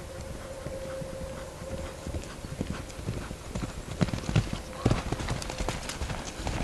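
A horse's hooves drumming on grass at a canter, getting louder as it comes close, with the heaviest thumps about four to five seconds in.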